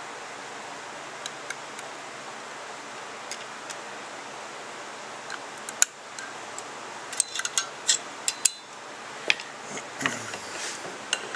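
Sharp metallic clicks and taps, bunched about halfway through, as the coil return spring is worked onto the rocker arm of a Carter six-screw mechanical fuel pump. Near the end, a brief rustling knock as the pump body is handled, over a steady hiss.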